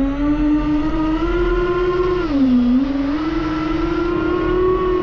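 DJI FPV quadcopter's motors and propellers whining in flight. The pitch rises, dips briefly about two and a half seconds in as the throttle drops, then climbs again and holds steady.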